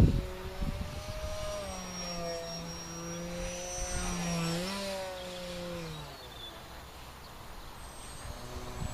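Propeller of a scratch-built Depron Funbat RC plane droning in flight, its pitch wavering up and down, then growing fainter after about six seconds. The prop is noisy from a nick in one blade, and sounds truly awful.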